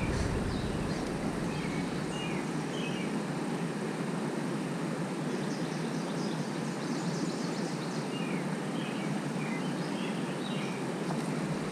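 Steady rush of water pouring down a lake spillway, with scattered short bird chirps.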